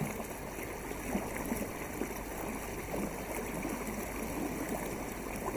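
Steady sound of lake water lapping and trickling along a canoe's hull as it glides.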